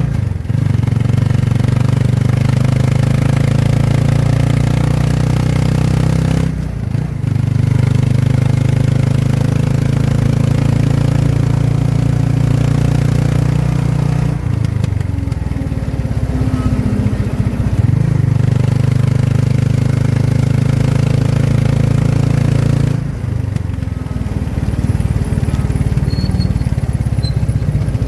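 Motorcycle tricycle engine running under way, a steady loud drone whose note drops and picks up again a few times as the rider eases off and accelerates.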